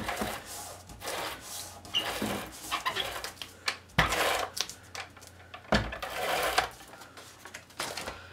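Cardstock pieces being handled and rubbed together, with a few sharp knocks on the tabletop.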